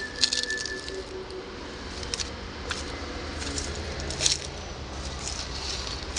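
Backhoe loader's diesel engine idling with a low, steady rumble, with scattered clicks and crunches over it.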